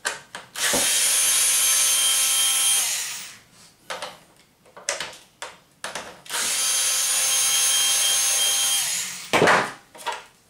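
Cordless electric screwdriver runs twice, each time for about two seconds, backing screws out of a plastic vacuum cleaner base. Its motor whine drops in pitch as each run winds down. Short clicks and handling knocks come between the runs, and a louder knock comes near the end.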